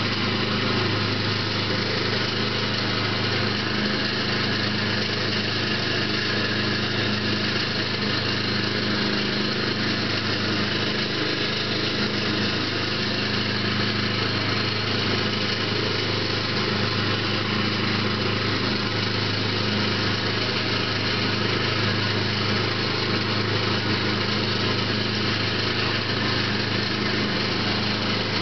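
Lawn mower engine running steadily at an even pitch, mulching leaves.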